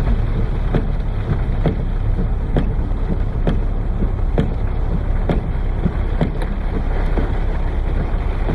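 Heavy rain pouring down in a dense steady rush, with wind rumbling on the microphone and a faint regular tick about once a second.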